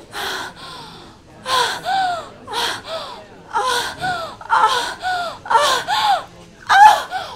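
A young woman's loud, rhythmic moans and gasps, in pairs about once a second, each rising and falling in pitch and growing louder toward a peak near the end: a faked orgasm.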